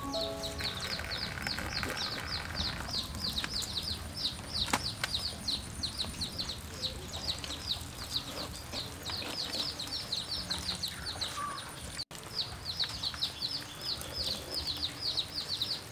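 Rapid high chirping, about five chirps a second, keeping on steadily with one brief break about twelve seconds in.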